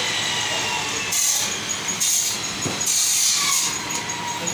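Butcher's knife cutting mutton on a wooden chopping block, with a few short knocks against the block, over a steady background of shop noise.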